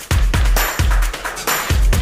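Electronic background music with a heavy, steady bass beat.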